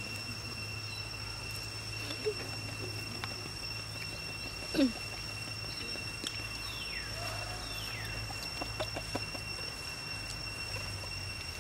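Outdoor ambience of steady high-pitched insect drone, with a few faint bird chirps and one short, louder call falling in pitch about five seconds in.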